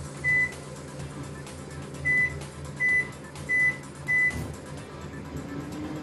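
Haier microwave oven keypad beeping five times, one short high beep for each button press, as the power level and cooking time are keyed in and the oven is started.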